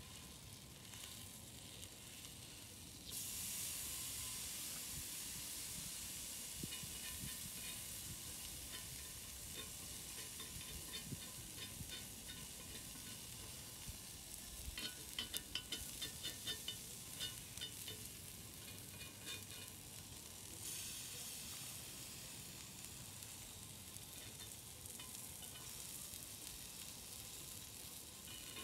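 Meat slices sizzling on a hot flat griddle. The sizzle rises suddenly about three seconds in and continues steadily. Around the middle there is a quick run of clicks and scrapes from a metal knife on the griddle.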